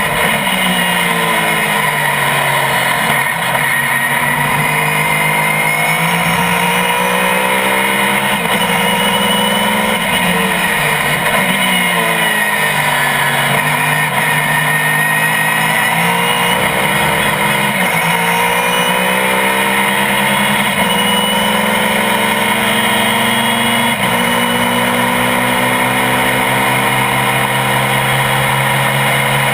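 GT-1 class road-racing car's engine under racing load, its pitch climbing again and again as it accelerates and dropping at gear changes and when slowing for corners.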